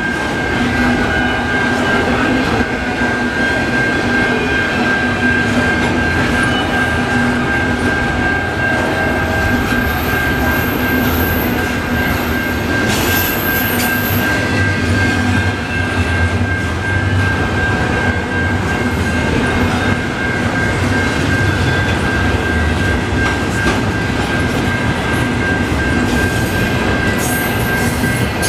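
Intermodal container well cars of a slow-moving freight train rolling past, wheels clacking over the rail joints, with a steady high-pitched wheel squeal held throughout.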